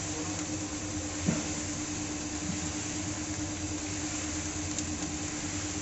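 Wheat roasting machine running steadily: a motor hum with a steady tone under a dense rushing noise of roasted wheat grains tumbling through its rotating wire-mesh drum. One brief knock about a second in.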